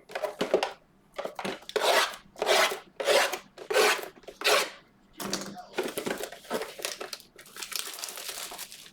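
Trading card packaging being handled and torn open: a run of short rubbing and scraping strokes, about two a second, that give way to steadier rustling about halfway through.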